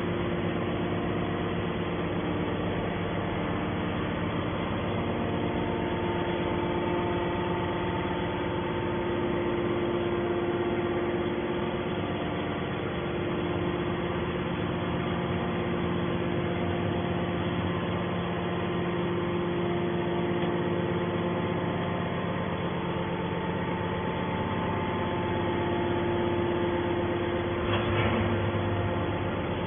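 Scrap metal baler's hydraulic power unit running steadily with a constant mechanical hum. A brief clatter comes near the end.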